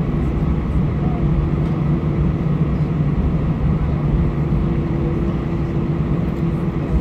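Cabin noise of an Airbus A320-214 taxiing with its CFM56 engines running: a steady low rumble with a steady droning hum through it.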